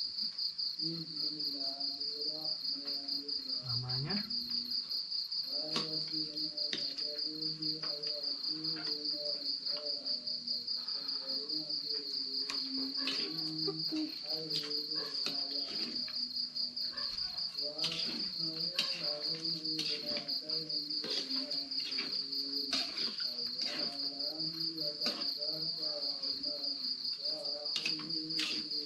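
Crickets chirping in a steady, high, pulsing trill. Under it are scattered clicks and a fainter pitched sound that rises and falls in short phrases.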